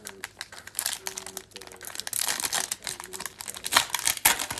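Foil wrapper of an Upper Deck hockey card pack crinkling as it is handled and opened, with many sharp crackles.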